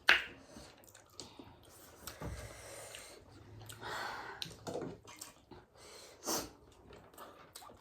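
Eating sounds: slurping and breathy sniffs and huffs between mouthfuls, with one sharp click just after the start.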